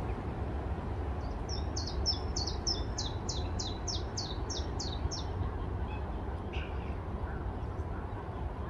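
A bird singing a quick run of about a dozen high, falling notes, about three a second, then a few fainter calls, over a steady low rumble of wind on the microphone.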